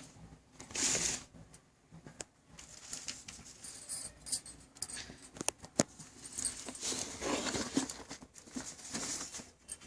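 Cardboard product box being handled and opened: irregular rustling and scraping with scattered sharp clicks and taps, in short bursts with brief pauses.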